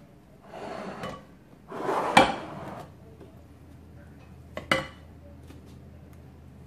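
Kitchen utensils scraping and knocking against a pot and a ceramic baking dish as soup is scooped out: two spells of scraping, with a sharp clink about two seconds in and another knock near five seconds in.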